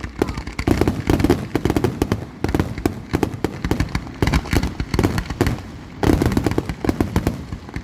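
Fireworks display going off: a dense, continuous run of bangs and crackles, several a second, with a louder cluster of booms about six seconds in.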